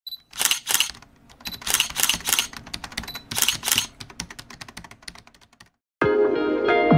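Logo-animation sound effects: several short bursts of hiss and a run of rapid clicks that thin out and stop shortly before six seconds in. After a brief silence, ambient electronic music with held tones starts about six seconds in.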